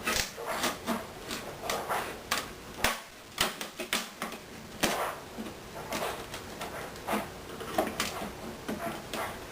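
Irregular clicks, taps and short scraping strokes of hand tools working at a wooden guitar body, prying and cutting along the binding to free the back.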